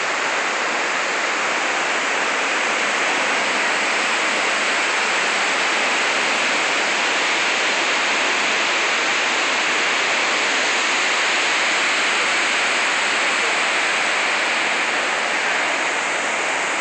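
Steady, unbroken rush of the 9/11 Memorial reflecting pool's waterfall, water pouring down the pool's walls into the basin.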